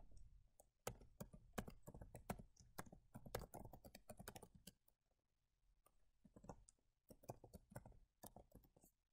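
Faint typing on a computer keyboard: two runs of quick key clicks with a short pause between them, as an email address and a password are entered.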